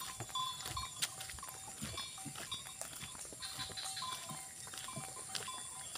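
Ox-drawn wooden cart rolling over wet asphalt: the ox's hooves clop and the cart knocks and clicks in an uneven patter, with short high squeaks recurring.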